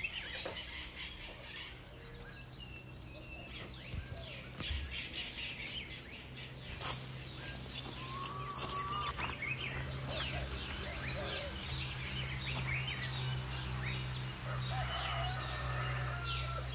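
Outdoor ambience of small birds chirping and calling in many short notes, over a steady low hum, with a few sharp knocks in the middle.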